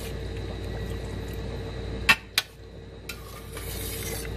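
Metal slotted spatula stirring ravioli in cream sauce in a stainless steel pan, clinking twice against the pan about two seconds in, followed by a brief soft hiss, over a steady hum.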